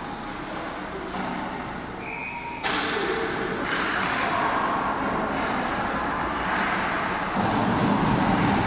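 Ice hockey game play sound in an arena: skates and sticks on the ice with spectator noise. A brief high steady tone comes about two seconds in, followed by a sharp knock and a second knock about a second later.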